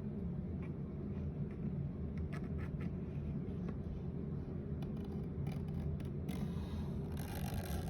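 Scratchy strokes of a drawing tool on paper, in short bursts and thickest near the end, over a steady low hum.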